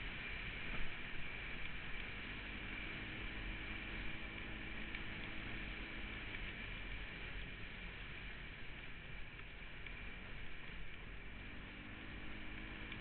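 Polaris Sportsman 570 ATV's single-cylinder engine running at a steady cruising speed under a steady rush of riding noise. The engine's tone comes through more clearly a few seconds in and again near the end.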